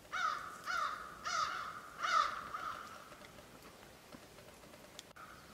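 A crow cawing four times in quick succession, each caw falling in pitch.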